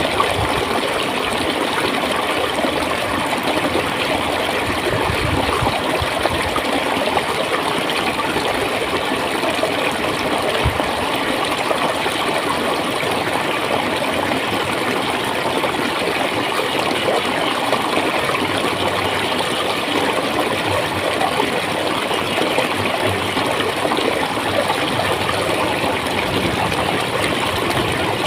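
Flowing water gurgling in a steady, unbroken stream.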